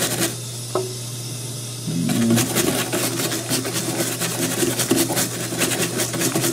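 Stiff plastic scrub-brush bristles scrubbing a wet, soapy motherboard around its CPU socket in rapid back-and-forth strokes. The scrubbing stops briefly just after the start and picks up again about two seconds in.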